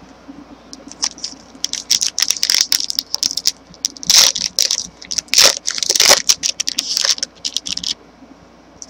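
Crinkling and tearing of a trading card pack's wrapper as it is ripped open and handled: a dense run of sharp crackles that starts under a second in and stops about a second before the end.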